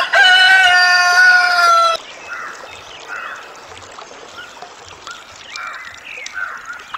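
A rooster crows once, a single long call of about two seconds that ends abruptly. After it, small birds chirp softly in the background.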